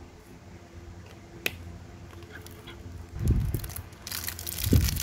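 Small handling noises: a single sharp click about a second and a half in, then soft bumps and rustling in the second half as things are moved about on the table.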